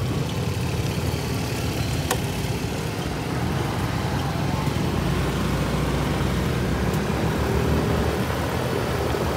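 Motor scooter running at low speed in town traffic, a steady engine and road noise with a low rumble. A single sharp click about two seconds in.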